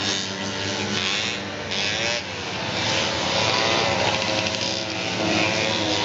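Several single-cylinder racing snowmobile engines running together, their pitches shifting as the sleds rev, with one bending noticeably about two seconds in.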